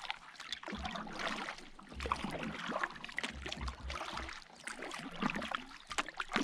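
Double-bladed kayak paddle stroking through lake water, each blade dipping and splashing with water dripping and trickling off it, in an uneven rhythm.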